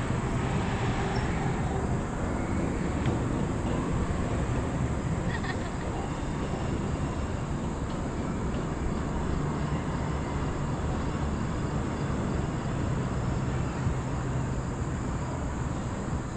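Chairlift running, heard from a moving chair: a steady rumble and hiss from the haul rope and chair, with a few faint clicks about five seconds in.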